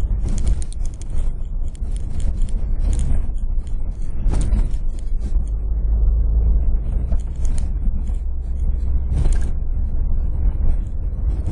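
Car driven fast on a sandy dirt track, heard from inside the cabin: a steady low rumble of engine and tyres, broken by irregular rattling clatters every second or two as the car jolts over the rough track.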